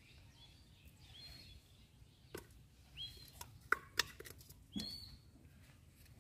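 A small bird chirping three times, about two seconds apart, each call a short high note that hooks upward, over faint outdoor background noise. Several sharp clicks fall between the chirps; the loudest two come about a second before the last chirp.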